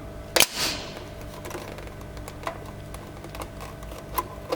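Wide belt sander's pneumatic oscillation system: a solenoid valve clicks and the air cylinder shifts with a short fading hiss of exhausting air, then a few faint clicks over a steady machine hum.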